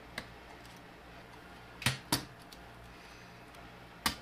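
Short, sharp clicks of small plastic cable connectors being worked loose and unplugged from an iBook G4's logic board. There is a faint click just after the start, two louder ones close together about two seconds in, and another near the end.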